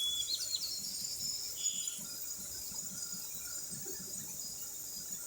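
Faint outdoor nature ambience: a steady high insect hum, with a few short bird chirps in the first two seconds.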